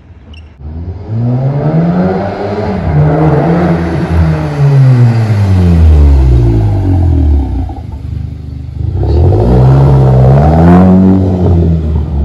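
Seat Leon 1.8 TSI's turbocharged four-cylinder engine accelerating hard past, loud through an exhaust with the rear silencer and intermediate box deleted; the engine note climbs, then drops away as the car goes by. About nine seconds in it revs up and drops away a second time.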